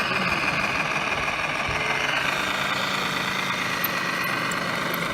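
Radio-controlled scale trucks and construction machines running, with a steady, engine-like sound.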